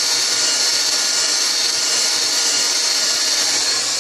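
Heat gun running steadily, its fan blowing hot air over a phone's glass screen to soften the adhesive underneath.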